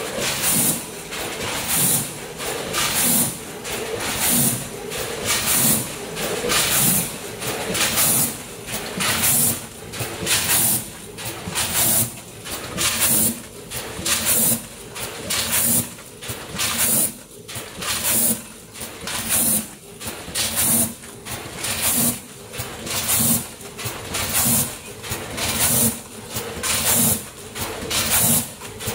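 Vertical form-fill-seal packing machine running a bagging cycle about once a second: each stroke of the sealing jaws brings a sharp hiss of air from its pneumatic cylinders, over the machine's steady running noise.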